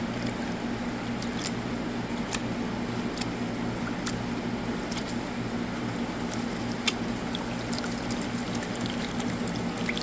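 Water sloshing in a gold pan as paydirt is panned, with scattered light clicks of gravel against the pan. A steady low hum runs underneath.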